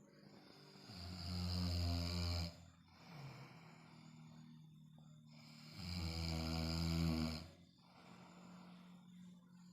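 A sleeper snoring in deep sleep: two long, loud snores about five seconds apart, each lasting about a second and a half, with quieter breathing between them.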